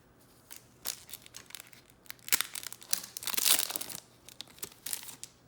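A foil trading-card pack wrapper being torn open and crinkled: scattered sharp crackles, with the longest rips about two to three and a half seconds in.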